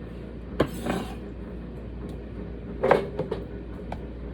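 Kitchen handling knocks from cutting cucumbers and packing the chunks into a glass jar: one sharp knock about half a second in, then a quick cluster of knocks about three seconds in and a lighter one a second later.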